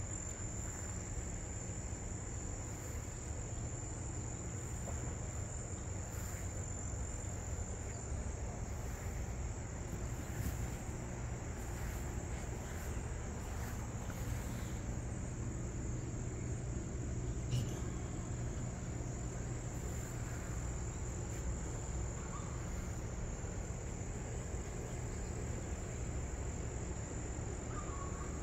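Steady high-pitched trilling of an insect chorus over a low background rumble, with one brief click a little past the middle.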